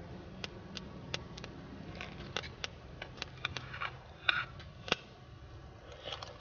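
Eating sounds: scattered small clicks and taps of a person eating noodle soup and bread and handling a metal mug, with two louder taps after about four seconds, over a faint steady low hum.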